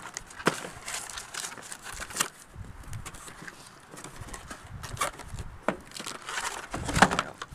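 Cardboard packaging being handled and pulled apart: scattered scrapes, rustles and knocks as a cardboard insert and its tape are worked off a Nerf blaster, the loudest knock about seven seconds in.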